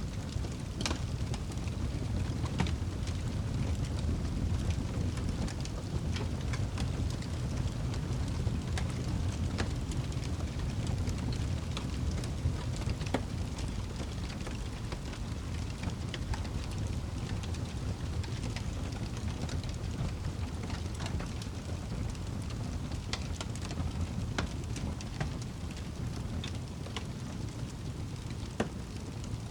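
Wood fire burning in a fireplace: a steady low rumble of flames with scattered sharp crackles and pops from the logs.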